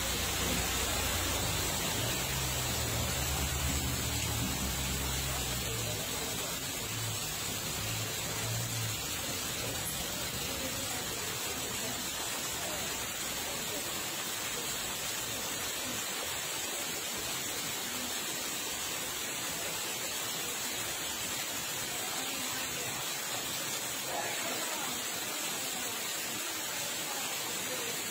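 Steady rushing hiss of floodwater, with a low hum under it for the first several seconds that stops about nine seconds in.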